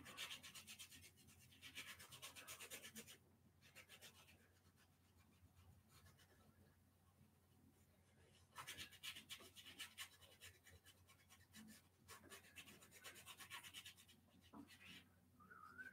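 Paintbrush scrubbing acrylic paint onto a canvas in rapid back-and-forth strokes, in four spells of a second or two with quiet pauses between.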